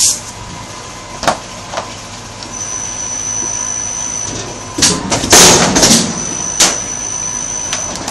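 Flatbed die-cutting press cycling: clicks and knocks as a sheet is pulled off the bed, then a steady high whine, a loud rushing burst lasting about a second midway through, and the whine again as the bed comes back out.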